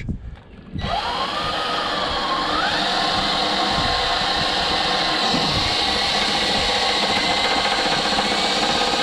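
Ridgid cordless drill running under load, a hand-sharpened twist bit cutting a hole through the boat lift's metal frame. It starts about a second in and runs steadily, its motor whine climbing in pitch just after it starts.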